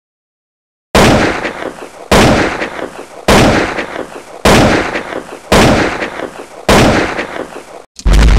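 Quiz-show sound effect: six loud, deep booming hits, one a little over every second, each dying away, as the prize ladder lights up step by step. Near the end comes a heavier boom that keeps ringing as the top prize is revealed.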